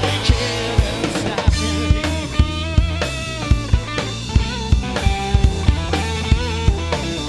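Live rock band playing an instrumental passage: a drum kit keeps a steady beat with kick and snare hits, over sustained bass notes and guitar.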